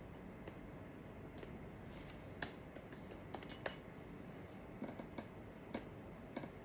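Scattered light clicks at an uneven pace over faint room tone, bunched in a quick run about two and a half to four seconds in and a few more near the end.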